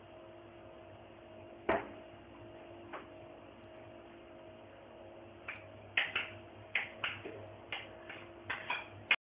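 Sharp knocks and clinks of cookware on a glass hob and against a mixing bowl as thin batter is poured into a frying pan. One loud knock comes in the second second and another a second later, then about a dozen in quick succession in the last three and a half seconds, over a steady low electrical hum.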